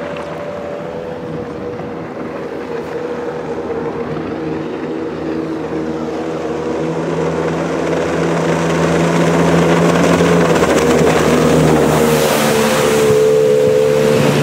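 Jet boat with a 200 hp Mercury Optimax two-stroke V6 running at speed on plane, its steady engine note growing louder as it approaches. The hiss of its spray and wake rises near the end as it comes close.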